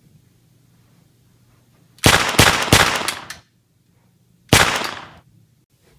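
Gunshots: a rapid string of about four shots about two seconds in, each with a decaying ring, then a single shot about two and a half seconds after the first.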